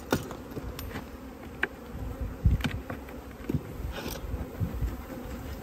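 Honey bees buzzing in a steady hum around an opened hive, with a few sharp knocks.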